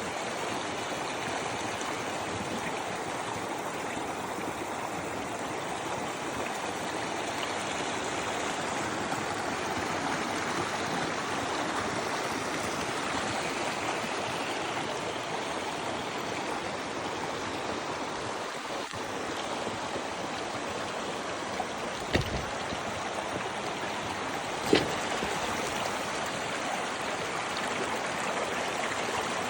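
River water rushing steadily over rocks, a constant even rush. Two short sharp knocks sound a couple of seconds apart about two-thirds of the way through.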